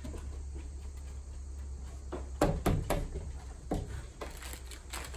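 A dog clambering up onto a wooden picnic bench and table: a cluster of knocks and thumps on wood about two seconds in, lasting a couple of seconds.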